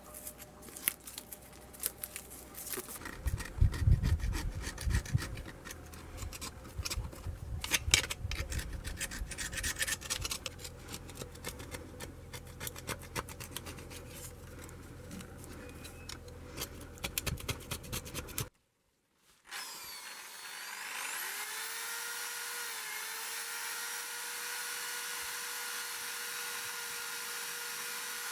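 Scraping and rubbing at the rust on a cast-iron kettlebell, heard as irregular scratches and sharp clicks. After a short silent break, a small electric power tool spins up with a rising whine and then runs at a steady pitch.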